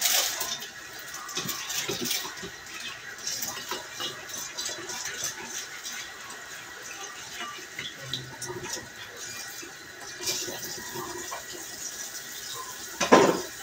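Scattered small clicks and clatter of things being handled in a kitchen, over a faint steady hum, with one loud knock near the end.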